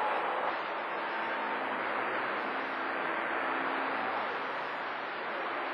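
CB radio receiver on channel 28 hissing with static, the open channel carrying no readable voice. Faint steady low tones sit in the hiss from about a second and a half in.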